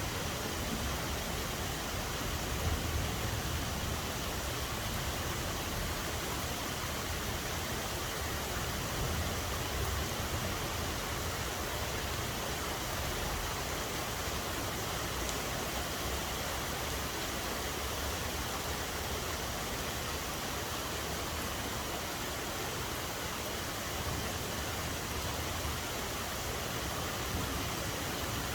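Steady rainfall: an even hiss of rain with no gaps or single drops standing out, over a faint low rumble.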